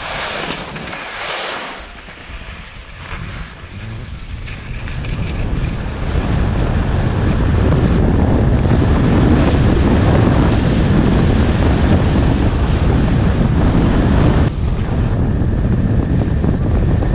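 Wind buffeting the microphone of a skier's camera on a fast downhill run, with skis hissing on the snow. The rush grows louder over the first six seconds as speed builds toward about 44 mph, then holds steady, easing briefly about fourteen and a half seconds in.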